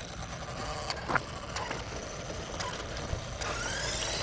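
Brushless motor and drivetrain of a Traxxas Rustler VXL RC truck whining as it drives off on a battery warm-up run, the pitch rising from a little past three seconds in. Before that, a few scattered clicks.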